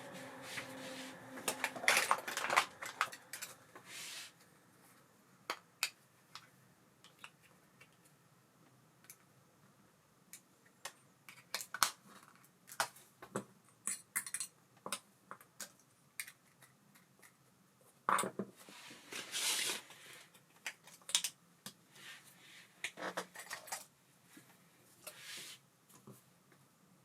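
Irregular metallic clicks and clinks of small reel parts and tools being handled, in scattered bursts with short pauses between them.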